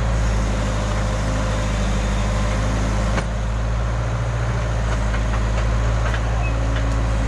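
Case backhoe loader's diesel engine running steadily, with a short knock about three seconds in.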